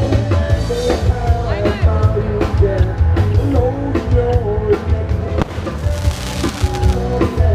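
Background music with a steady heavy bass beat and a melodic line over it.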